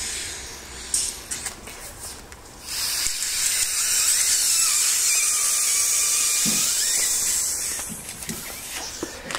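LuminAID inflatable solar lantern bag being blown up: a loud steady hiss of air rushing in, with a faint squealing tone, lasting about five seconds. Before it come a few light clicks and some plastic rustling.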